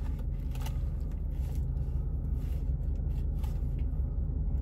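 Steady low engine-like hum, as of a vehicle idling, with a few faint clicks and rustles.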